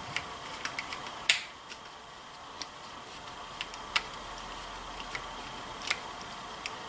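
Scattered light metallic clicks and taps of a screwdriver bit working a small Phillips screw out of a rifle's stock, with one sharper click about a second in.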